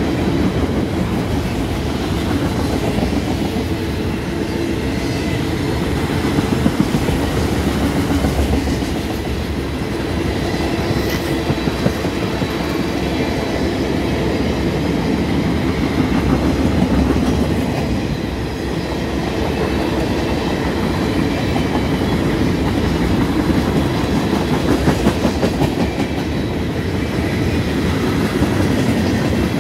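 Freight cars of a passing mixed freight train rolling by close at hand: a steady rumble of steel wheels on rail with a rhythmic clickety-clack over the rail joints and a few sharper clanks.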